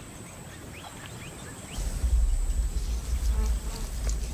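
A low, deep rumbling growl from lions at a carcass that starts suddenly about two seconds in and carries on. Before it there are a few faint rising bird chirps.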